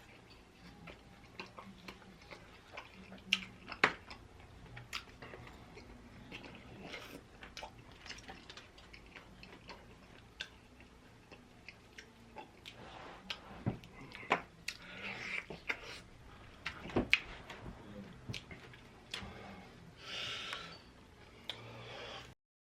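Close-miked chewing of pizza and chicken wings, with many wet smacks and mouth clicks. The sound cuts out briefly near the end.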